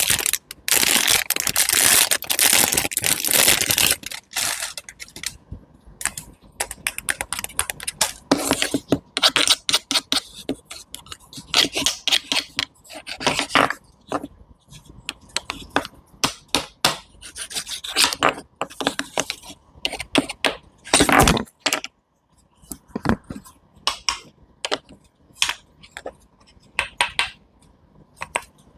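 Close-miked knife work on fruit and a cutting board: crisp cuts, scrapes and taps, dense for the first few seconds, then scattered single strokes with short pauses between.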